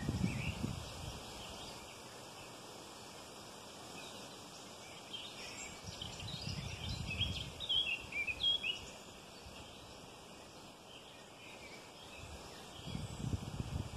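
Small birds chirping and calling in the trees over a faint outdoor hiss, with a cluster of calls in the middle. Low rumbling swells on the microphone come near the start, in the middle and again near the end.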